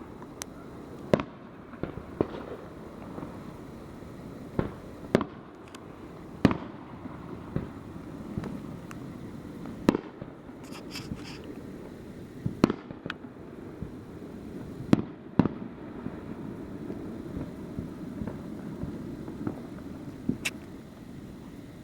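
Fireworks going off: irregular sharp bangs every second or few, over a steady low rumble of more distant explosions.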